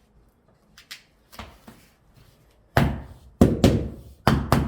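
A few light clicks, then heavy knocks on wooden floor planks, the louder ones in quick pairs, as the boards are knocked into place.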